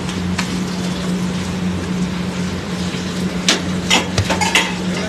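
Naan dough slapped between the hands and pressed onto the inside wall of a tandoor: a few sharp slaps, most of them in the last second and a half, over a steady low hum.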